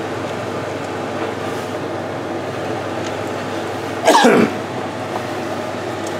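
Steady rushing noise over a hob with steaming pots. About four seconds in, a person makes a short vocal sound, like a cough or grunt, that falls in pitch.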